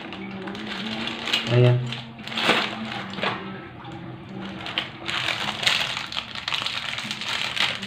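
Plastic packaging bags crinkling while the small metal lockset parts inside them click and rattle as they are handled, in a run of quick irregular clicks. A faint steady hum runs underneath.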